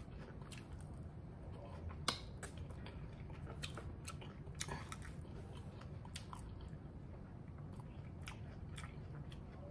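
A person chewing Cajun french fries with the mouth closed: faint, soft mouth clicks and smacks, with one sharper click about two seconds in.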